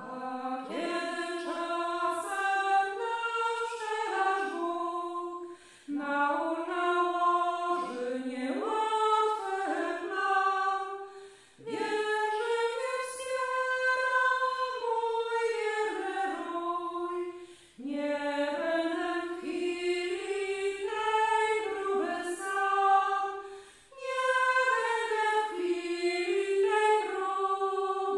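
A choir singing in several parts. The phrases last about six seconds each, with a brief pause between them, five phrases in all.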